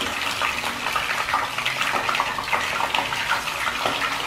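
Whole scad frying in hot oil in a non-stick pan: a steady sizzle with many small crackling pops.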